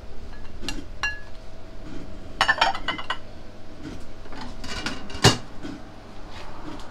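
Ceramic bowls and plates clinking and clattering as they are handled and set down on a stainless steel counter: a few ringing clinks, a quick cluster of clatter about halfway, and one sharp knock, the loudest, a little after five seconds in.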